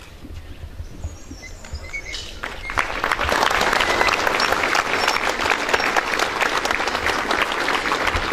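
Crowd clapping, starting about two and a half seconds in and building quickly into steady applause.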